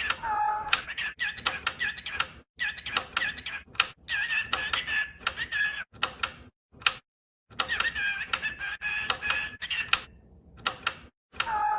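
Pet bird chattering: a fast stream of clicks mixed with warbling, gliding whistled notes, broken by two short pauses about seven and ten seconds in.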